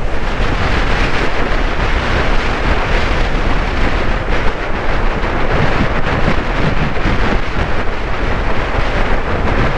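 Heavy wind rushing over the microphone of a scooter rider on the move, with the Honda Vario 160 scooter's running and road noise underneath; a steady, loud rush.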